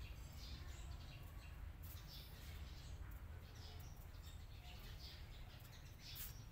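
Faint, short, high chirps come every half second or so over a low, steady rumble.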